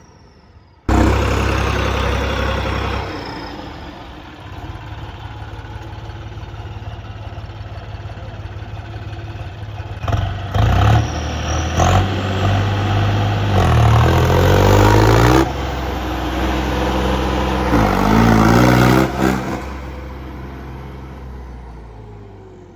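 Tractor engine running under load and revving up several times, its pitch rising and falling; it starts abruptly about a second in and fades away near the end.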